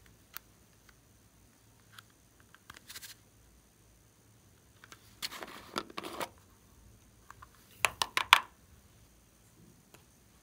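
Close-up handling sounds of hands working a plastic heart-shaped pouch and slime: scattered small clicks, a rustle about five seconds in, and a quick run of sharp crackling clicks about eight seconds in.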